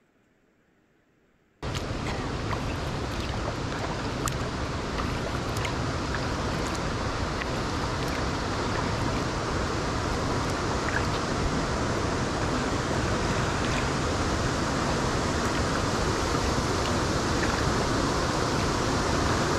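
Near silence for about a second and a half, then the steady rush of Paresseux Falls, a river waterfall pouring over rock, slowly growing louder as the kayak draws nearer.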